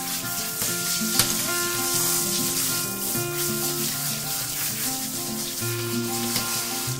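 Handheld bath shower sprayer hissing steadily as it rinses a dog's wet coat, with one brief click about a second in, over background music.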